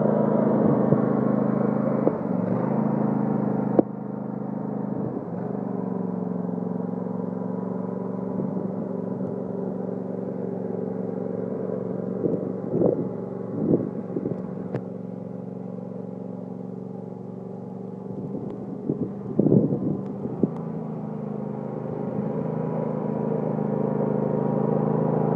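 Cub Cadet LT1050 lawn tractor engine running steadily while it plows snow. The engine drops suddenly about four seconds in, stays fainter through the middle with a few brief noises, and grows louder again near the end.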